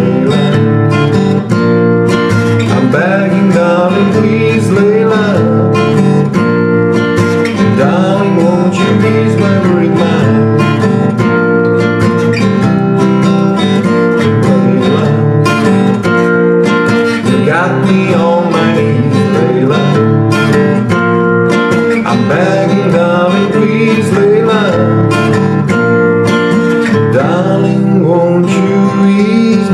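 Acoustic guitar played with the fingers, chords picked and strummed in a steady rhythm.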